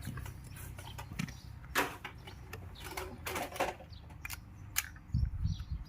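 Scattered clicks, taps and light knocks of electric fan parts being handled during a repair, the loudest a little under 2 s in and again about 3.5 s in.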